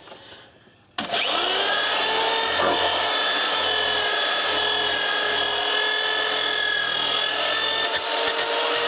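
Corded electric drill with a wire brush attachment spins up about a second in and runs steadily, the brush scrubbing the metal underside frame of a van to loosen rust and old paint before repainting.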